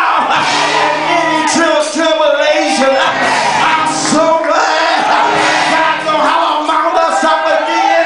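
Loud gospel church music with sustained organ chords and cymbal crashes. A man sings and shouts over it through a microphone while the congregation shouts along.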